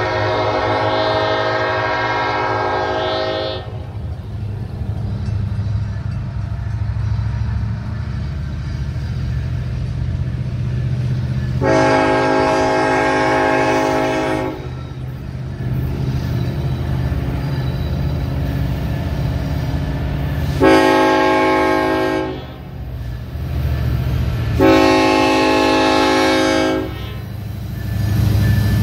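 Union Pacific diesel locomotive sounding its air horn in the long, long, short, long pattern, the standard warning for a grade crossing, over the low rumble of the approaching locomotives. The rumble grows louder near the end as the train reaches the crossing.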